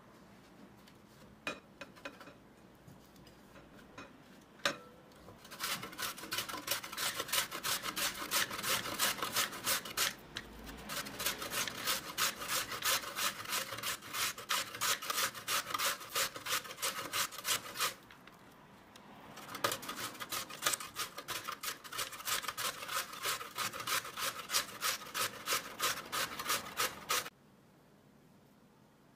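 Raw potatoes being grated on a stainless steel box grater: quick, even rasping strokes, about three or four a second, in long runs broken by short pauses.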